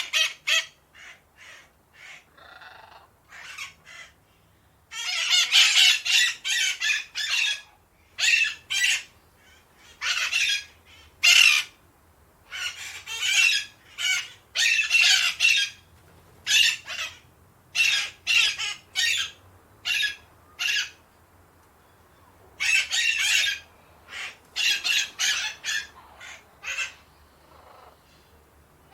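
Ducks quacking in loose runs of rapid, harsh calls, several birds overlapping, with short pauses between the runs.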